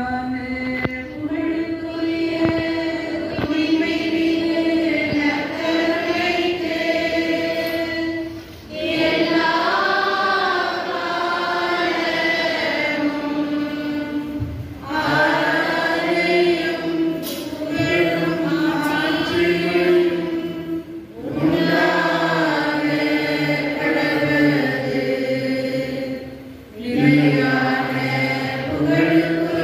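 A group of voices singing a slow hymn together in long held phrases, with a short break for breath roughly every six seconds.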